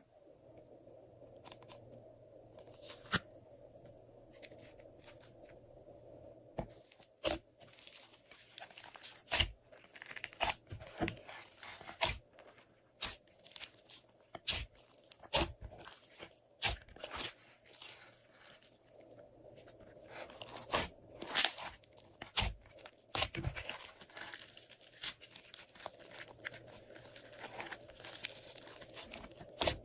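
Glossy slime being worked by hand: irregular sharp sticky clicks and crackles, busiest in two stretches with quieter handling between.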